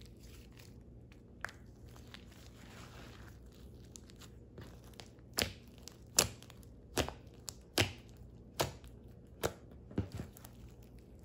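Blue bead-studded slime worked by hand: faint soft stretching sounds at first, then, from about halfway, fingers pressing and poking into the slime give a run of about seven sharp pops, roughly one every 0.8 seconds.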